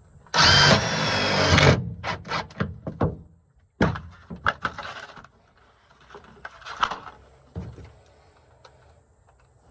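A short loud whirring burst from a power tool about half a second in, followed by a series of knocks and thunks of wooden boards and tools being handled and set in place.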